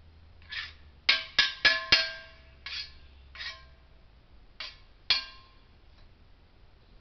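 A series of about nine sharp knocks, each with a brief ringing tone. Four come in quick succession about a second in and are the loudest, and the rest are scattered more slowly over the next few seconds.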